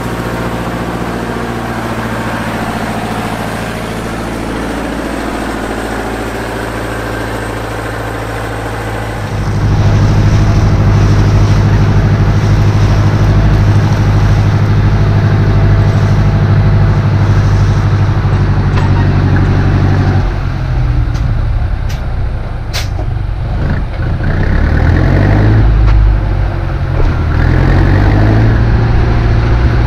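Fortschritt ZT tractor's four-cylinder diesel engine running under load while pushing snow with a front blade. About 9 s in it becomes much louder and closer, and in the last third the engine speed rises and falls several times.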